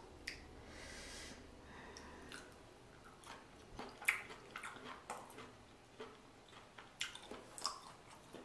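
Faint close-miked chewing, with a scattered series of small wet mouth clicks.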